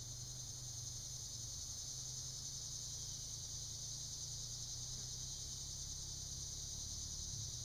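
Steady high-pitched insect chorus droning without a break, over a faint low steady hum. No gunshot.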